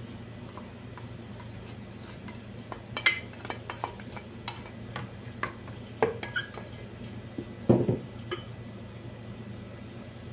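A plastic spoon scraping and knocking against a plastic mixing basin as flour mixture is scooped and divided, in a string of light irregular clicks and knocks. The loudest come about three seconds in and near eight seconds. A steady low hum runs underneath.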